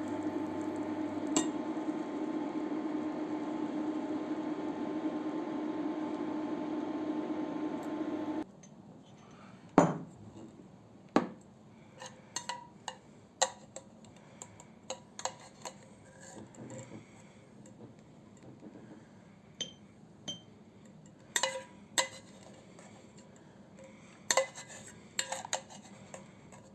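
A steady electrical hum that cuts off suddenly about eight seconds in, followed by a string of sharp clinks and knocks of utensils against dishes, some ringing briefly, as kitchenware is handled while preparing the remedy's ingredients.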